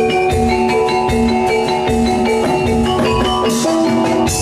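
Javanese gamelan music accompanying a jathilan dance: metallophones strike a repeating melody over drum strokes, with a cymbal-like crash near the end.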